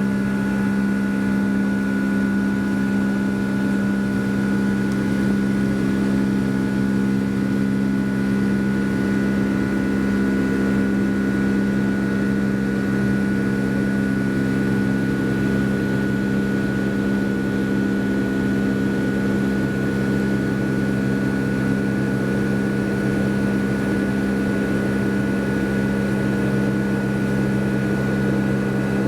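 Boeing 757's Rolls-Royce RB211 jet engines heard from inside the passenger cabin, a steady drone of rushing air with a constant low hum and a thin high whine. The aircraft is still climbing after takeoff.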